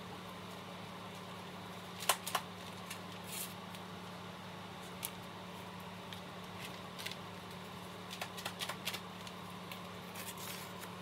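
Scattered light clicks and taps of kitchen handling as seasoning is shaken into an enamelled cast-iron pot, a cluster a couple of seconds in and another run near the end, over a steady low hum.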